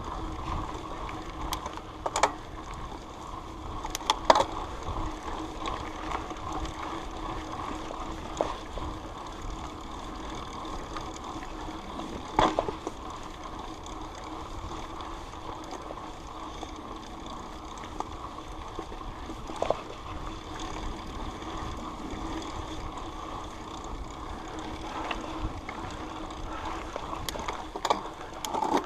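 Mountain bike ridden along a dirt trail: steady tyre and drivetrain noise, with a few sharp knocks and rattles from bumps.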